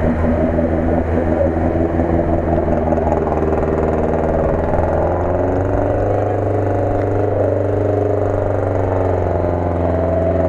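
UAZ-469 jeep's engine running hard at steady high revs under load as it spins its wheels in deep mud.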